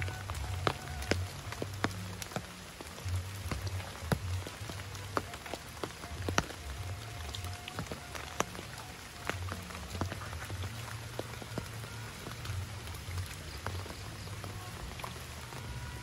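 Rain falling on forest foliage: a steady patter with many scattered, sharper single drops.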